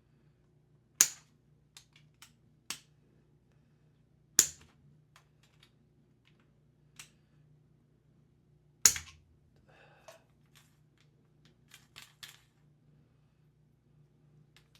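Sharp clicks and snaps from the parts of a steering wheel spinner knob as a nut is screwed tight inside it: three loud snaps a few seconds apart, with fainter ticks between.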